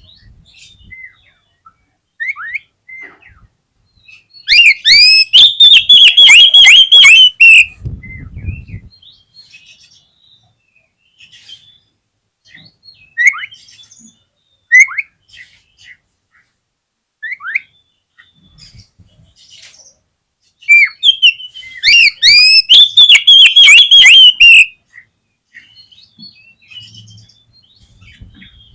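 Oriental magpie-robin (kacer) singing: scattered short whistles and chirps, broken by two loud bursts of fast repeated notes, one about four seconds in lasting some three seconds and another about twenty-one seconds in lasting nearly four.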